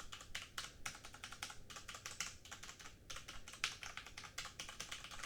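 Rapid typing on an Ozone Strike Pro mechanical keyboard with Kailh red linear switches: a fast, quiet patter of keystrokes.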